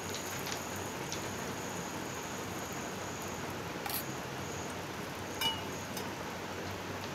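Semolina patties deep-frying in hot oil, a steady sizzle with a few brief clicks, the loudest about five and a half seconds in.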